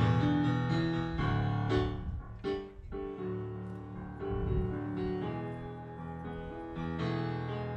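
Stage keyboard with a piano sound playing an instrumental passage of chords and melody, with a brief dip in loudness about two and a half seconds in.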